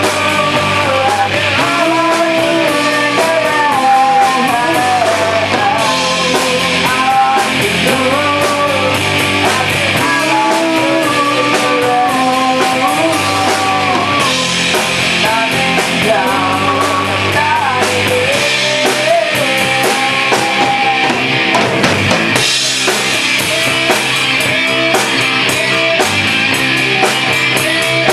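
A live rock band rehearsing a song: electric bass, electric guitar and drum kit playing together under a sung lead vocal.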